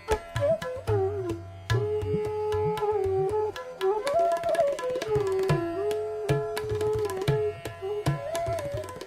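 Hindustani classical bansuri flute playing raga Bhopali, a single gliding, ornamented melody line held on long notes, with tabla strokes keeping the rhythm beneath it.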